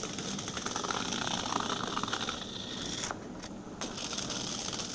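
Small battery-powered vibrating robot bug toy buzzing and rattling in fast ticks as it skitters across a hard floor. It is briefly quieter a little past halfway.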